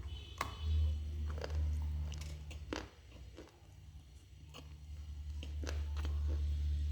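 Close-up crunching and chewing of hard, dry multani mitti (fuller's earth clay): a scattering of sharp crunches, thinner in the middle, over a low steady rumble.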